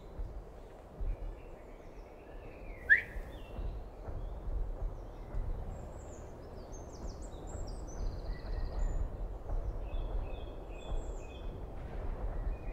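Woodland ambience: small birds chirping and singing over a low, steady rumble of wind. There is one sharp click about three seconds in.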